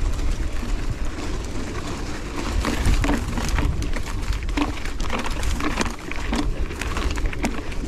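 Mountain bike riding over a rough dirt trail strewn with branches: a steady low rumble with many quick clicks, knocks and crackles from the tyres and bike over sticks and stones.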